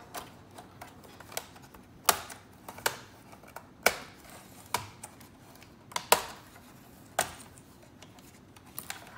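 Keyboard bezel of a Dell Precision 7530 laptop being pried off, its retaining clips snapping loose in a series of sharp clicks, about six of them louder than the rest, with lighter ticks as the bezel rattles over the keys.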